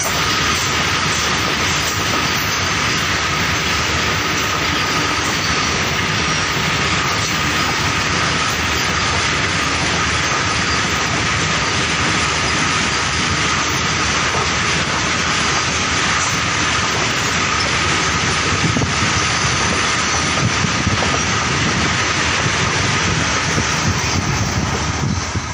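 A long rake of cement-loaded BOXN open box wagons rolling past at speed: a steady, loud rumble and clatter of wheels on rails, with a thin high ringing tone held over it. Near the end the noise begins to fall away as the last wagons go by.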